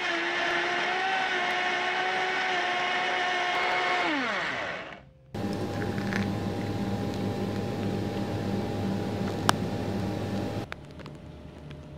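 Countertop blender motor running at full speed, a steady high whine, then winding down with falling pitch as it is switched off about four seconds in. After a short gap comes a steady low hum with a single sharp click.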